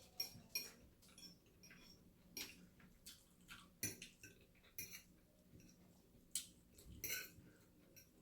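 Faint close-up eating sounds: chewing air-fried chicken, with scattered irregular clicks and smacks.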